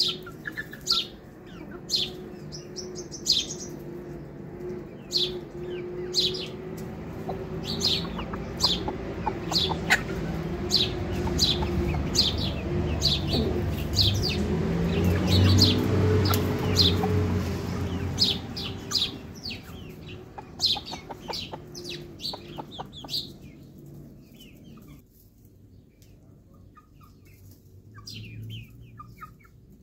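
Birds chirping among foraging backyard chickens: short, high chirps repeat about once a second through most of the stretch. Under them runs a low steady hum that swells to its loudest midway and fades out near the end.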